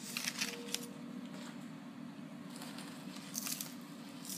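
Rustling and scraping of a cardboard tray as charred carrot and onion pieces are scraped and tipped out of it, in a few short spells, over a steady low hum.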